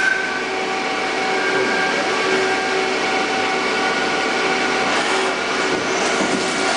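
Jenn Wei JW-21M CNC lathe running: a steady machine hum carrying several steady whining tones.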